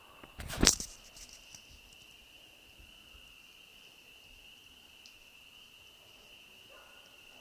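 Crickets chirring steadily in one high, even tone, with a single loud sudden thump about half a second in, followed by a few fainter clicks.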